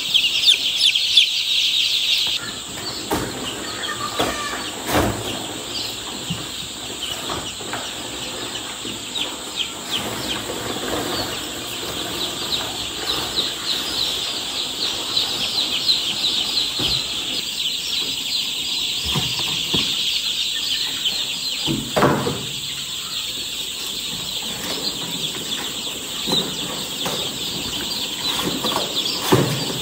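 A brood of newly hatched chicks peeping nonstop, many high peeps overlapping into a dense chorus, loudest in the first two seconds. A few dull thumps and rustles sound among them, the loudest about two-thirds of the way through.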